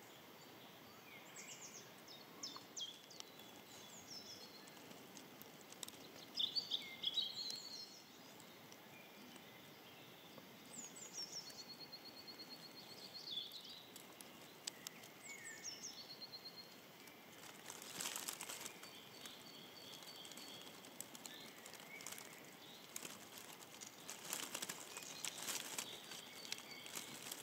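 Quiet outdoor ambience with several small birds chirping and whistling at intervals, including a short rapid trill near the middle. Two spells of rustling hiss come in the second half.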